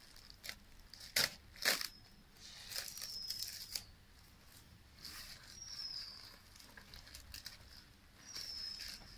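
A sticker being peeled and torn off a cardboard package, with sharp rips and scraping, and three short high falling squeaks.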